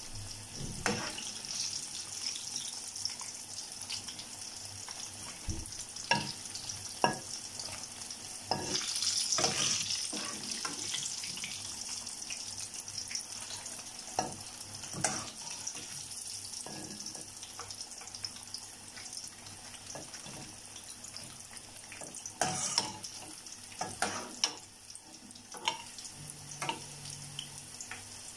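Breaded chicken pieces frying in hot oil, a steady sizzle that swells briefly about nine seconds in. Scattered sharp clicks of a metal skimmer against the pan come through it as the golden pieces are lifted out.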